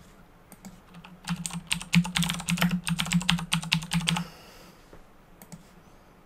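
Typing on a computer keyboard: a quick run of keystrokes lasting about three seconds, stopping about two-thirds of the way in, followed by a couple of faint clicks near the end.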